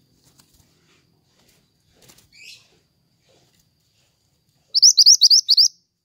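Minivet ('mantenan') calling: a faint falling note about two seconds in, then near the end a quick, loud run of about six sharp rising notes.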